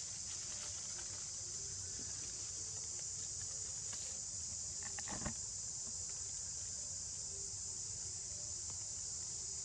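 Steady high-pitched drone of insects in the background, with one brief rustle of dry leaves about five seconds in.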